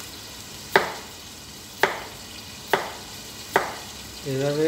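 Kitchen knife slicing a raw potato into rounds on a plastic cutting board: four sharp knocks of the blade hitting the board, about a second apart. Underneath, a steady sizzle of chicken frying in a covered pan.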